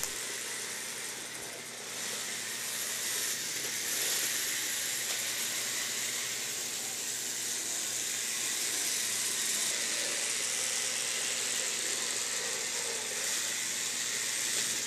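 Märklin HO model trains running around the track: a steady whirring and rattling of small electric motors and wheels on metal rail, a little louder from about two seconds in.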